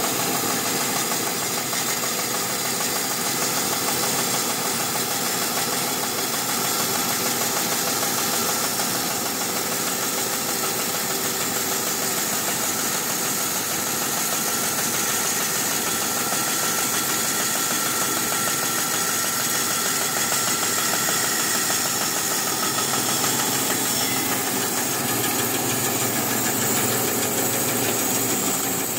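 Bandsaw running steadily with its blade resawing a block of Brazilian redwood into a thin veneer slice.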